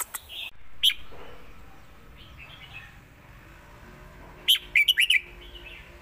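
Red-whiskered bulbul singing: a few short, sharp notes near the start, then a quick burst of several loud notes about four and a half seconds in.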